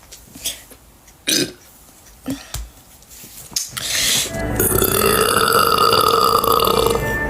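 A woman burping: a few short burps in the first half, then one long, drawn-out belch at a steady pitch from about four seconds in.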